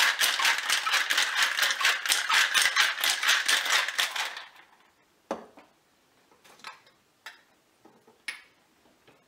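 Ice rattling hard inside a stainless steel cocktail shaker being shaken, a fast even rattle of about six or seven hits a second that stops about four and a half seconds in. A few faint metal clicks follow as the shaker is set down and its cap taken off.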